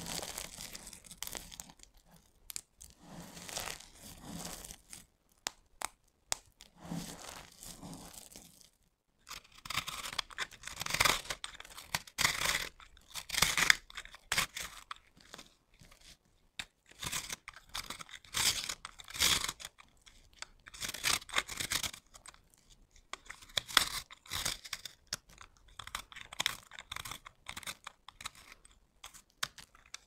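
Dry, crumbly soap crackling and crunching as it is crushed by hand, then, about nine seconds in, sharper, louder crisp scrapes and crunches as a knife blade cuts and shaves a pink piece of soap into crumbs.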